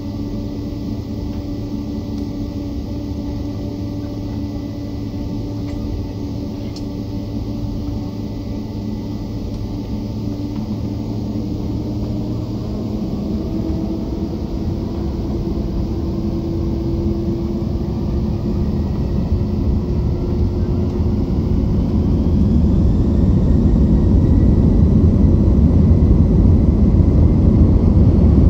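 Boeing 767-300ER engines heard from inside the cabin: a steady hum at first, then from about halfway through a rising whine as the engines spool up to takeoff thrust. The low rumble grows steadily louder as the takeoff roll begins.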